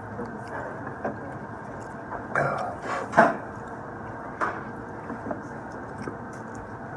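Steady room hum with a few short chewing and mouth sounds from someone eating a taco, the loudest about three seconds in.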